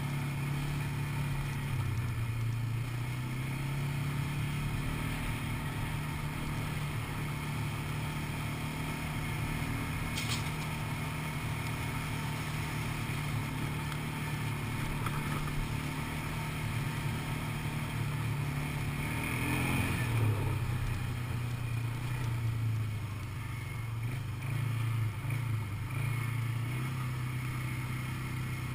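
ATV (quad bike) engine running steadily while riding a dirt track, its pitch shifting with the throttle, with a brief surge in revs about twenty seconds in.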